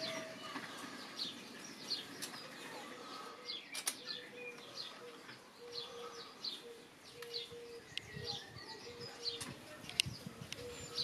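Outdoor birdsong: small birds chirping in many short, high, falling calls, over a low note that repeats in short stretches, with a few sharp clicks.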